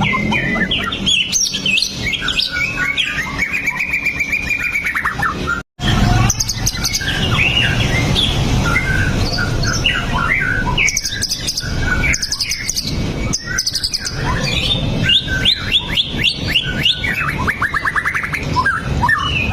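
White-rumped shama (murai batu) singing a long, varied song of clear whistles, pitch glides and fast trills, with rapid runs of repeated notes near the end. The sound cuts out completely for a split second about six seconds in.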